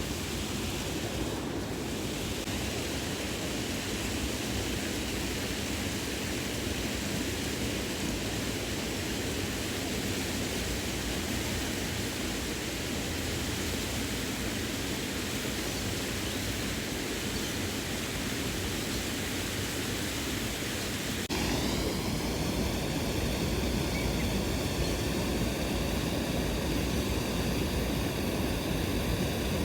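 Steady rush of a waterfall. About 21 seconds in it turns abruptly a little louder and its tone changes.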